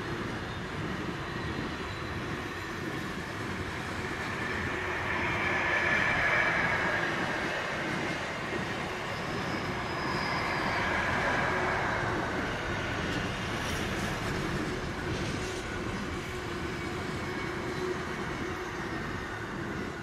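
Loaded container wagons of a long intermodal freight train rolling past on electrified main-line track: a continuous rumble and hiss of steel wheels on rail that swells and eases, with a brief high whine about nine seconds in. It falls away at the very end as the last wagon clears.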